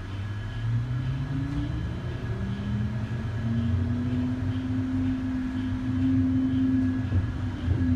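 Electric traction motor of a New Flyer XT60 articulated trolleybus with Vossloh Kiepe drive, heard from inside the cabin: a whine rising in pitch as the bus accelerates, levelling off into a steady tone a little before halfway through over a low hum.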